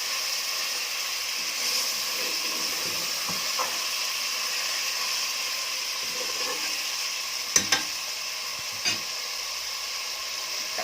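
Meat and onion frying in ghee in a cooking pot, a steady sizzle now that the meat's juices have cooked off and only fat is left. Two sharp knocks against the pot about seven and a half seconds in, and one more a second later.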